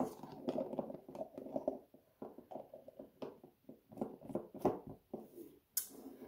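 Screw-on lid turned back onto a jar and the jar handled on a countertop: a run of scrapes and small knocks, with a louder brief scrape near the end.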